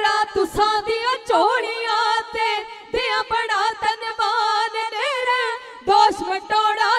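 Women's voices singing a dhadi vaar with long, wavering ornamented notes. Short strokes of the dhadd hand drum and a bowed sarangi accompany them.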